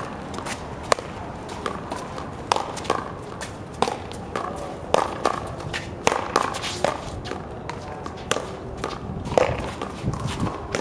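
Paddleball rally: repeated sharp smacks of paddles striking the small rubber ball and the ball hitting the concrete wall, at an irregular pace of about one or two a second, with sneakers scuffing on the concrete court.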